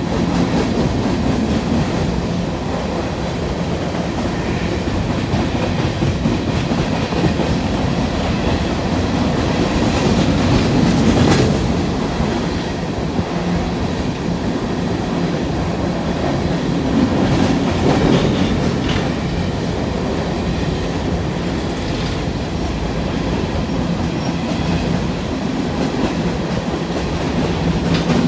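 Empty open-top coal cars of a freight train rolling past, with steady wheel-on-rail clatter. It swells a little twice, about a third of the way in and just past the middle.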